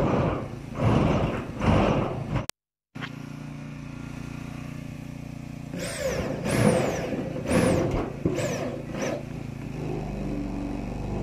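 Corded electric drill driving self-drilling roofing screws with rubber sealing washers into a corrugated steel roof sheet. The motor runs up in several short bursts, and its whine falls in pitch each time it slows.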